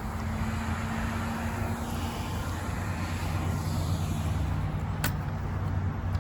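A motor vehicle running close by: a steady low engine hum whose pitch drops about halfway through, with a single sharp click about five seconds in.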